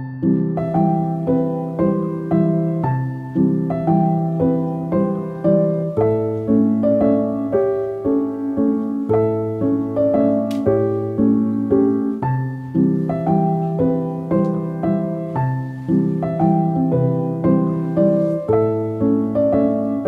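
Background piano music, a steady run of notes struck at an even pace.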